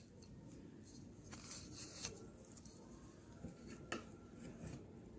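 Near silence: faint room hiss with a few soft, short taps as chopped green chillies are tipped from a plate into a steel mixing bowl.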